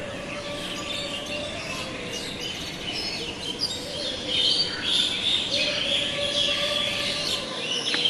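Small birds chirping: many short high calls overlapping, growing louder and busier about halfway through.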